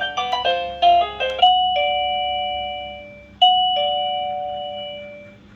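Doorbell chime ending a quick tune of short notes, then sounding a two-tone ding-dong twice, high note then lower note, each pair ringing on and fading.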